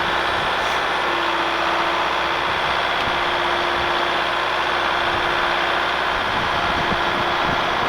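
Skid steer loader engine running steadily at speed, with a constant whine over the engine noise.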